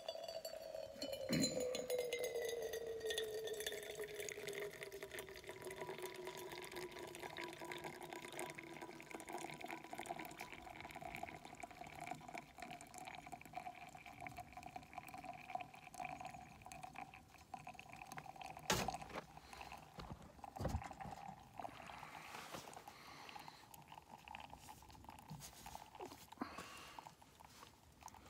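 Freshly boiled water poured in a thin stream from an MSR WindBurner stove pot into a paper-filtered pour-over coffee cone. The pouring note slides lower over the first several seconds, then holds steady, with a few sharp knocks, one about a second in and two around two-thirds of the way through.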